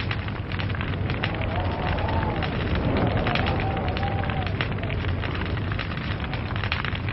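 Log fire burning with dense, irregular crackling and popping over a steady low hum. A faint wavering tone rises and falls in the middle of the crackle.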